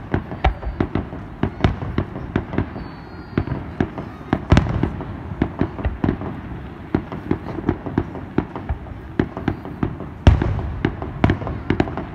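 Fireworks display going off: a fast string of sharp bangs and crackles, several a second, with heavier booms about four and a half seconds in and again about ten seconds in, the second one trailing off in a low rumble.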